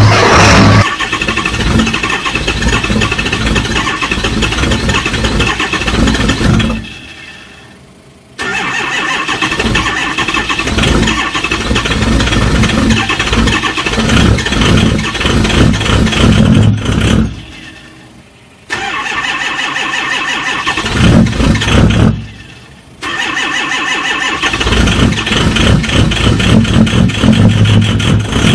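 Cold engine starting and running roughly with a pulsing beat. Three times it dies away over about a second and then starts again abruptly.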